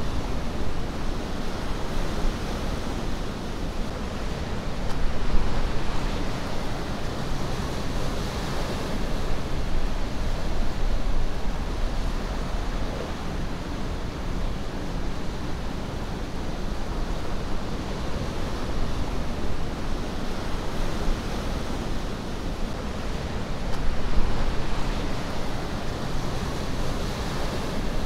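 Ocean surf washing steadily, swelling louder now and then, most clearly about five seconds in and again near the end.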